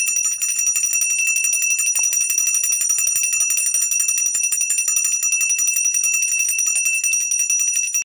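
Brass puja hand bell (ghanti) rung rapidly and continuously during the aarti: a bright, steady ringing made of quick clapper strikes. It cuts off abruptly at the end.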